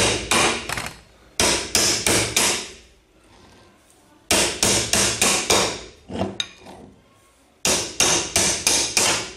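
Hammer striking pliers set against a washing machine motor's rotor bearing, knocking the faulty, rusted bearing off the shaft. The metal-on-metal blows come in four quick runs of about five or six strikes each, with short pauses between the runs.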